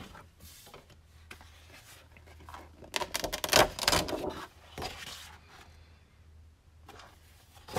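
Sheets of 12x12 scrapbook paper rustling and sliding as they are lifted, turned over and laid down on a cutting mat, in a few short bursts, the loudest a little after three seconds in.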